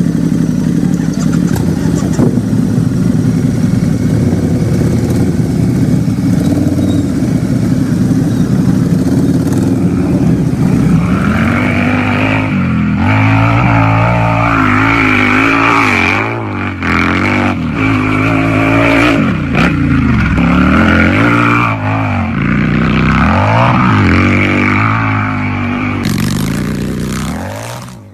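Harley-Davidson V-twin motorcycle engine running at a steady speed, then revved up and down repeatedly, its pitch rising and falling several times before it fades out near the end.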